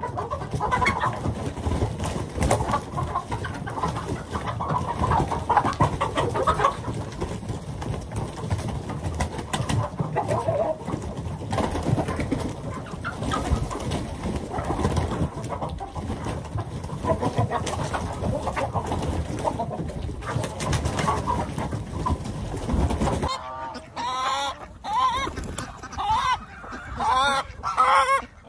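A flock of chickens clucking and squawking as they crowd out through the coop's pop door, over steady low background noise. About 23 seconds in the sound changes abruptly to clearer, separate clucks and calls of the flock feeding in the run.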